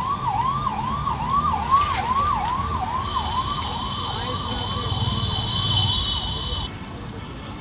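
Electronic siren yelping in quick rising-and-falling sweeps, about two and a half a second, with a steady high-pitched beep joining about halfway; both cut off suddenly near the end.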